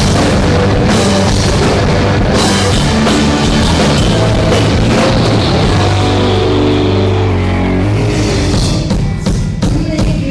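Loud live rock band playing, drum kit and sustained amplified chords together. About eight seconds in the full band sound drops away, leaving separate drum hits.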